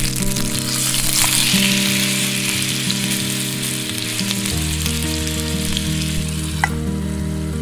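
Chicken thigh frying in oil in a small pan, a steady sizzle that is strongest in the first few seconds, with background music underneath.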